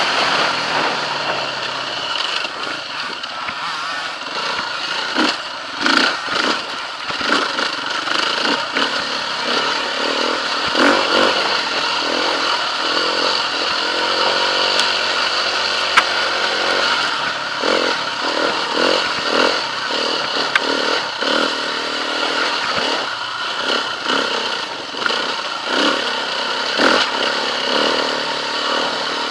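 KTM 350 EXC-F enduro bike's single-cylinder four-stroke engine running under way, its note rising and falling with the throttle, with frequent knocks and rattles from the bike over rough ground.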